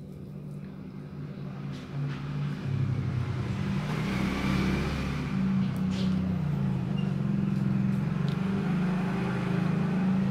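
A motor engine running, growing louder over the first few seconds and then holding, with its pitch shifting a few times.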